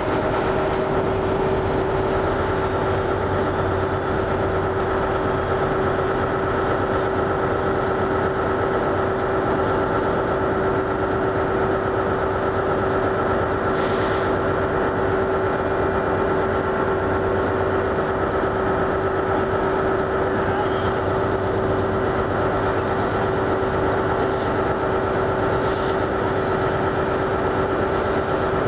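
Class 70 diesel-electric freight locomotive pulling away with a train of empty coal hopper wagons. The engine drones steadily under the rolling noise of the wagons, and two brief clicks come through, one mid-way and one near the end.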